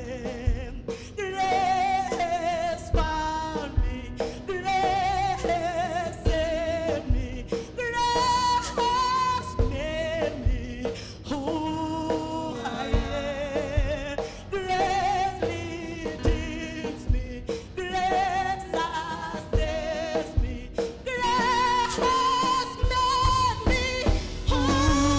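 Live gospel praise-and-worship song: a woman singing lead with a group of backing singers, over a band with a steady low beat.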